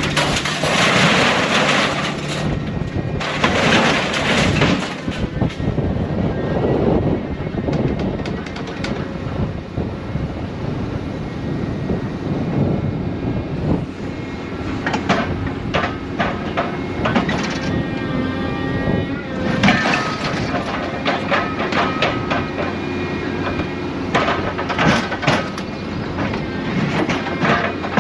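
Scrap-handling machine's engine and hydraulic grapple running steadily while scrap metal is picked up and dropped. There are bursts of crashing, rattling metal at the start, again a few seconds in, through the middle, and toward the end.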